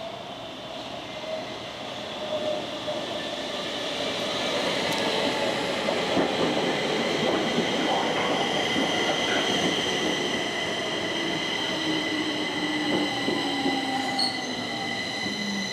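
Stockholm Metro train running at the station, its rumble growing louder over the first few seconds, with several steady high-pitched whines or wheel squeal on top. Near the end a lower tone slowly falls in pitch.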